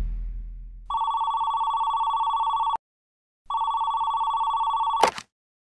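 Telephone ringing with a trilling electronic tone: two rings of just under two seconds each, cut off by a click as the call is picked up. A low rumble fades out during the first second.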